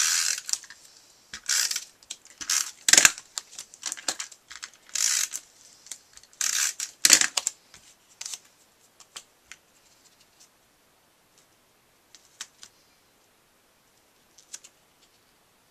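Stampin' Up Snail adhesive tape runner drawn along cardstock in several short rasping swipes, followed by a few faint ticks of the paper strip being handled and pressed onto the card.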